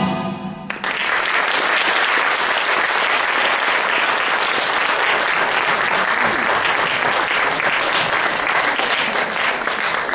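Audience applauding, beginning about a second in as the last notes of the flamenco music die away.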